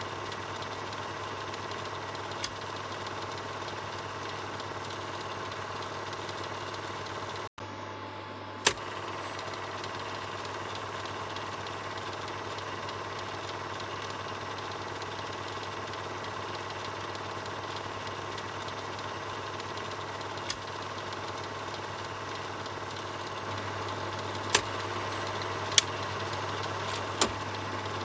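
Film projector running steadily, a constant mechanical whir over a low hum. A few sharp clicks sound, and the sound cuts out very briefly about seven and a half seconds in.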